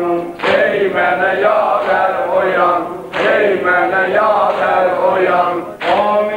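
A Muharram mərsiyə (Shia mourning elegy) chanted by male voices. Three sharp slaps, evenly spaced about two and a half seconds apart, keep time: mourners beating their chests (sinə vurma) in unison.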